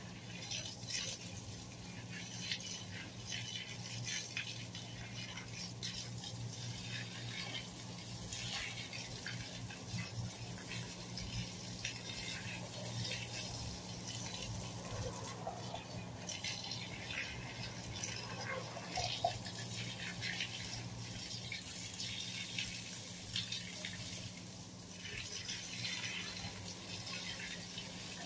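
Water spraying from a garden hose onto plants and soil: a continuous splashing hiss that flickers unevenly as the spray hits leaves and ground, over a low steady hum.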